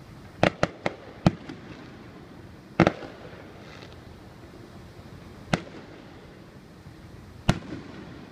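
Aerial fireworks shells bursting: a quick string of four sharp bangs in the first second and a half, the loudest bang near three seconds, then single bangs about two seconds apart, each trailing off in a short rumble.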